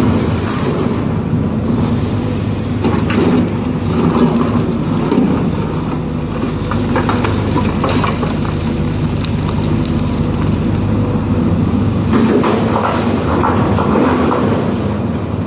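Hydraulic excavator's diesel engine running steadily under load, with intermittent clanking and scraping from the machine working earth.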